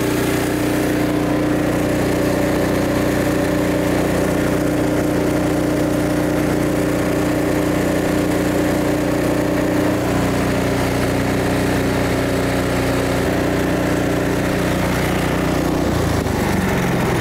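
Ariens AX 306cc single-cylinder snowblower engine running steadily, its note shifting near the end.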